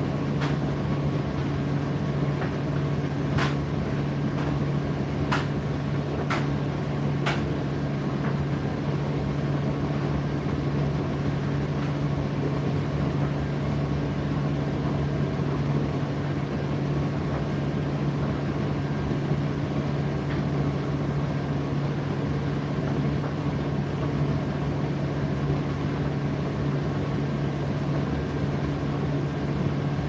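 Indesit IDC8T3 condenser tumble dryer running mid-cycle with a steady low hum. A few sharp ticks sound in the first seven seconds or so.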